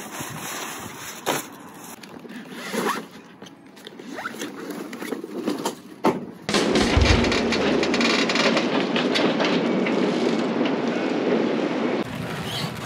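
New Rolly Tasker sail being handled out of its bag on deck: rustling and scattered clicks, then from about six and a half seconds in a loud, steady crackling of stiff sailcloth as the folded sail is pulled about, with a low thump near the start of it.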